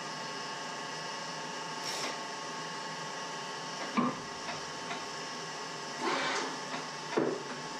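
Steady machine hum with a few short knocks and clatters as tools are handled at a metal lathe; the sharpest knock comes about four seconds in, with more around six and seven seconds.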